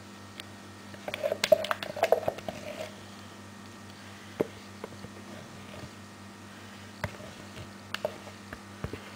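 Thick cold-process soap batter being spooned onto the top of a soap loaf: a busy run of soft clicks, scrapes and squishes about a second in, then scattered single clicks, over a faint steady hum.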